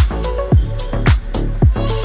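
Background dance music with a steady kick drum, about two beats a second.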